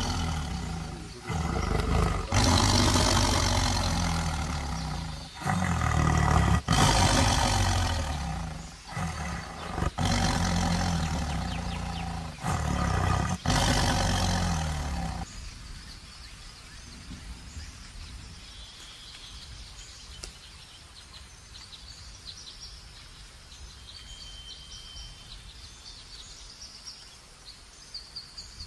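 Big cat roaring and growling over and over, loud and deep, for about the first fifteen seconds, then stopping abruptly. After that only a quiet outdoor background with a few faint bird chirps remains.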